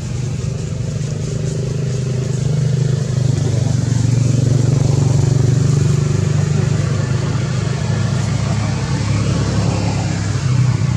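A motor engine running with a steady low hum that grows louder in the middle.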